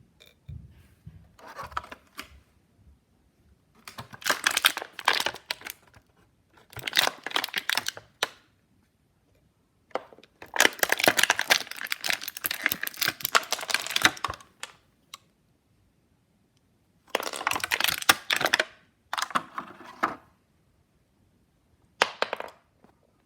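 Stiff plastic toy packaging being handled, crinkling and crackling in several separate bursts of a second or a few seconds each, the longest about four seconds.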